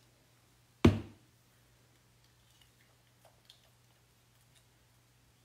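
A single sharp knock about a second in, then a few faint light clicks and taps over a steady low hum.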